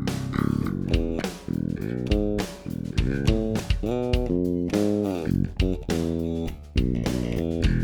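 Warwick Thumb bolt-on five-string electric bass played solo through a clean direct input (raw DI): a bass line of separate plucked notes with sharp attacks, some of them sliding in pitch.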